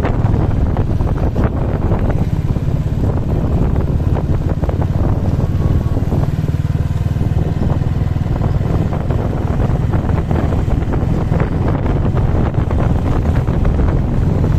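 Vehicle engine running steadily on the move, with wind rumbling on the microphone.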